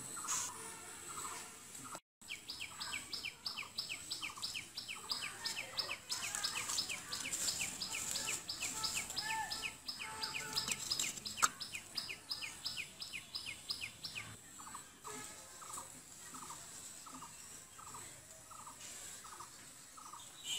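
Birds calling: a fast, even run of short high chirps, several a second, for about twelve seconds, then slower, lower repeated notes about two a second. The sound drops out completely for a moment about two seconds in.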